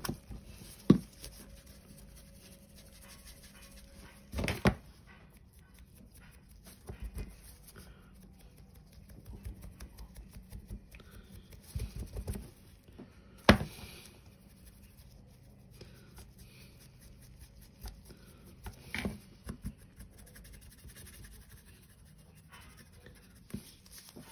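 Dry-brushing: a paintbrush scrubbing lightly over a plastic scale model, with a few short knocks as the model and brush are handled and set down on the cutting mat.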